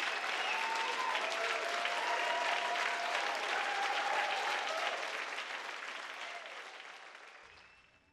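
Concert audience applauding, with a few cheers and whistles over the clapping; the applause fades out over the last three seconds.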